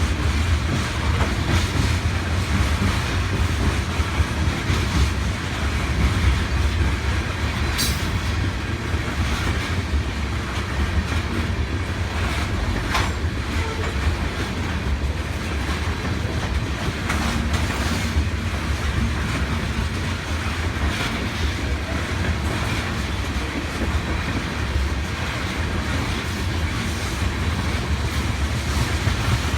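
Oil train's tank cars rolling past: a steady rumble of steel wheels on rail with clickety-clack at the rail joints, and two sharp clicks about a third of the way in and shortly after.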